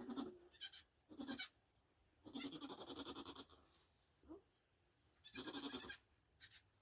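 Nigerian Dwarf goats bleating: a string of short, wavering bleats. The longest lasts about a second, a little over two seconds in.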